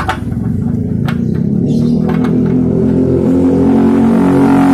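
Single-cylinder four-stroke motorcycle engine of a Honda Megapro-based custom CB, stroked up to 228 cc, running and revving: its note rises over a couple of seconds about halfway through and then holds.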